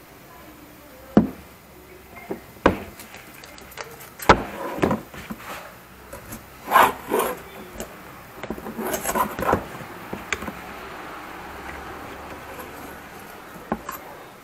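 A metal screwdriver levering and scraping at the joint between a rusty knife blade and its handle, prying the old handle off. Irregular sharp clicks and knocks, with two bursts of scraping and clatter in the middle.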